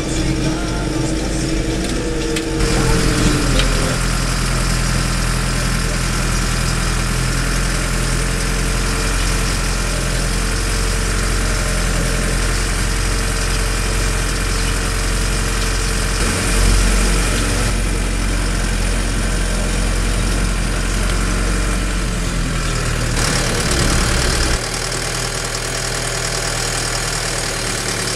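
Fendt 209 V vineyard tractor's engine running steadily, heard from inside the cab. Its sound changes about two and a half seconds in, swells briefly midway, and its low hum drops near the end.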